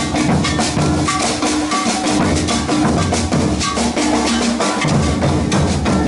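Maracatu drum group playing a steady, driving rhythm: large rope-tensioned bass drums (alfaias) beating under snare drums (caixas), many strokes a second.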